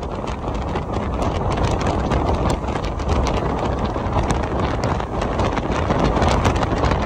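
Wind rushing over and buffeting the microphone of a camera held out of a moving vehicle's window, with road noise beneath and frequent crackles from the gusts.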